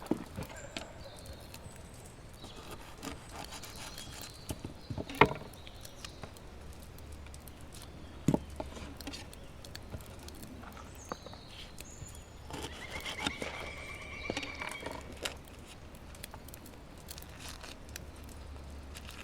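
Scattered sharp knocks and clatters, the loudest about five seconds in, with birds chirping high and a rapid, even trill a little after the middle.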